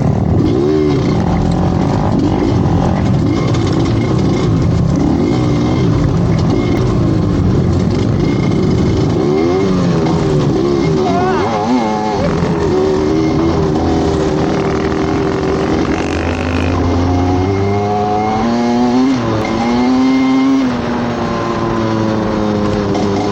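Motorcycle engine revving up and down as it is ridden, its pitch rising and falling with the throttle over steady rushing noise.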